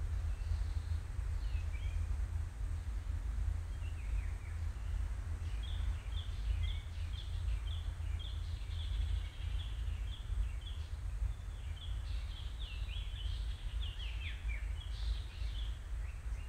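Forest birds singing, with scattered high chirps early on and a fast run of quick repeated chirps from about five seconds in. Under them is a steady low rumble.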